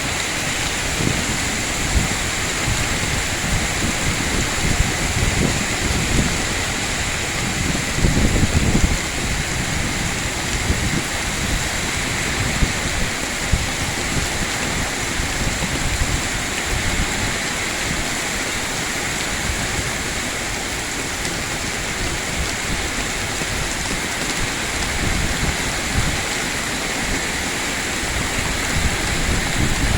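Heavy rain pouring steadily, with gusts of strong wind buffeting the microphone, the strongest gust about eight seconds in.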